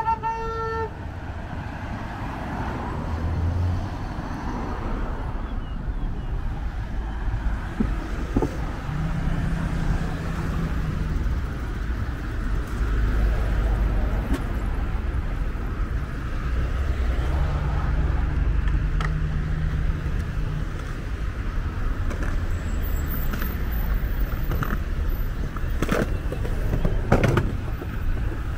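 Road traffic: cars going by with a steady engine and tyre rumble, and a car horn sounding briefly right at the start.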